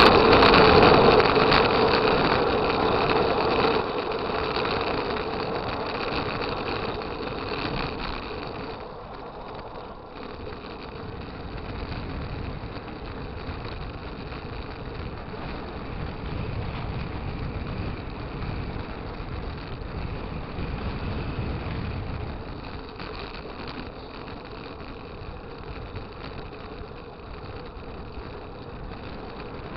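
A vehicle's engine running, with road noise, while driving along. It is loudest in the first few seconds and settles to a steadier, quieter level after about eight seconds.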